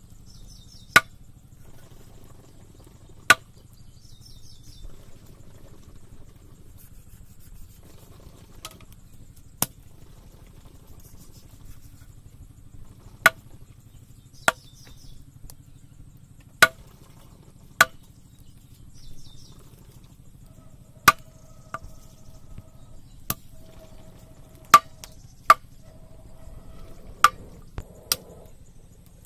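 Kitchen knife chopping raw chicken pieces on a wooden log: a dozen or more sharp knocks as the blade strikes the wood, spaced irregularly and coming closer together in the second half.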